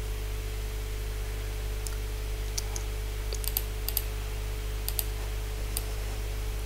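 Scattered sharp clicks from operating a computer, a few of them in quick pairs, over a steady low hum.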